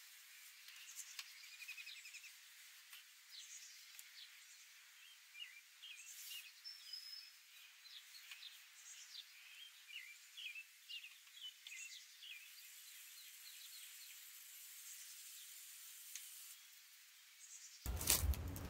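Faint, scattered bird chirps over a low hiss. Near the end a much louder, deeper noise cuts in abruptly.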